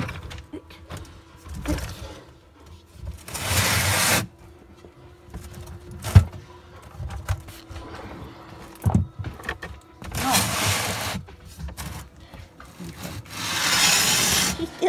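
Rustling and scraping as a hand rummages through a tortoise enclosure's pellet bedding and wooden hide. There are three bursts of about a second each and one sharp knock about six seconds in, over a faint steady hum.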